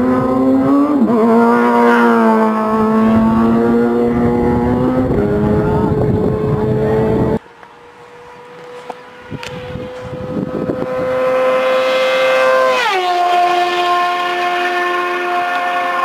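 A motorcycle engine at full throttle, launching down a drag strip, its pitch stepping down about a second in and up again a few seconds later. After a sudden cut, a second motorcycle is heard approaching at high speed, its engine note steadily louder, then dropping sharply in pitch as it passes.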